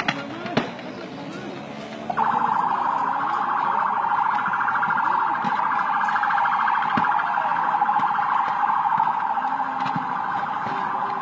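An alarm starts about two seconds in: a loud, steady buzzing tone that pulses rapidly and keeps sounding, over faint distant voices. A couple of sharp pops come just before it.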